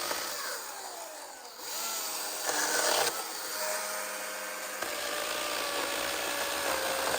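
Husqvarna two-stroke petrol chainsaw running under throttle and cutting wood. Its engine pitch drops over the first second or so, climbs back, and then holds steady at high revs.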